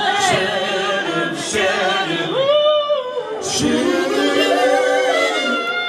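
Several voices singing together without instruments heard, a cappella.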